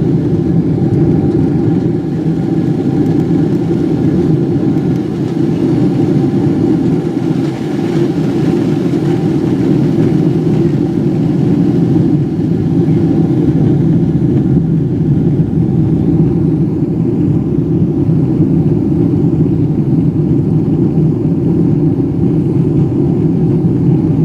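Cabin noise inside a Boeing 777-300ER: a loud, steady rumble from its GE90 engines and the airflow.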